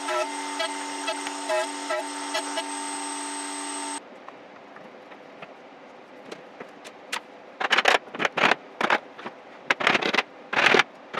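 A power tool runs at the router table with a steady high whine, cut off suddenly about four seconds in. In the second half a rubber mallet knocks the chair back's wooden slats, tenons into mortises, in two quick runs of blows.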